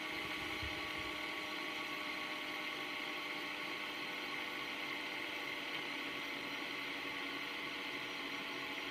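A fidget spinner spinning freely on its bearing, giving a steady, even whir.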